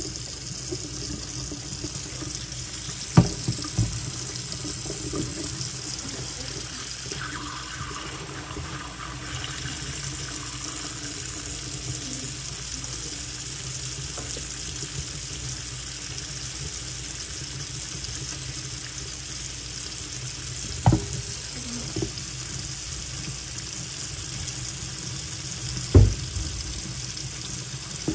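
Kitchen tap running steadily into a stainless-steel sink while cooked shell pasta is rinsed in a pot under the stream. A few sharp knocks cut through it: two close together about three seconds in, and two more in the last third.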